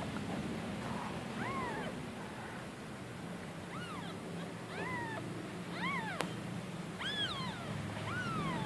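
A newborn kitten mewing repeatedly while it is held and spoon-fed milk: short, high calls, each rising then falling in pitch, coming about once a second and more often toward the end. A single sharp click sounds about six seconds in.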